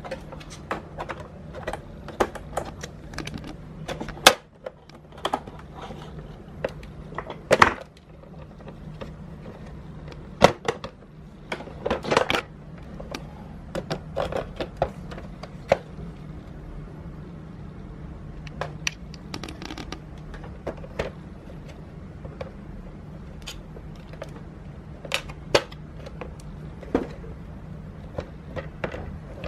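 Irregular clicks, knocks and rattles of Miele S8 canister vacuum parts being taken apart and refitted by hand, over a low steady hum.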